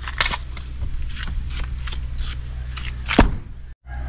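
Handling noise from packaged drawer slides and a plastic shopping bag on a car seat: a series of short rustles and knocks, with a louder thump about three seconds in. A brief dropout follows near the end.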